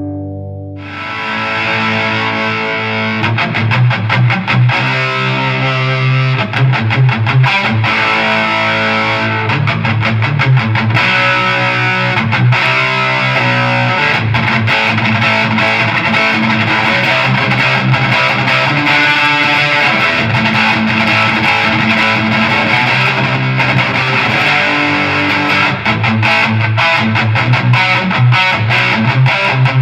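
Electric guitar played through a Snake Oil Fine Instruments Marvelous Engine overdrive pedal, distorted rock riffs and chords with choppy, rhythmic strumming.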